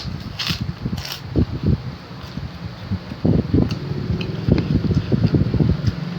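A person eating: irregular soft chewing and mouth sounds, with a couple of sharp clicks about half a second and a second in, over the steady hum of a fan.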